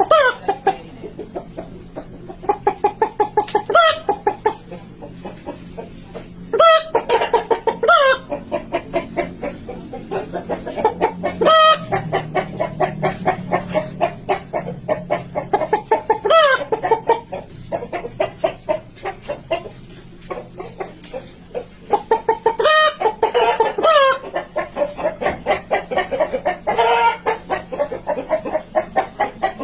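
A person imitating a hen's cackle: runs of quick clucks that climb into a sharp, high squawk, over and over.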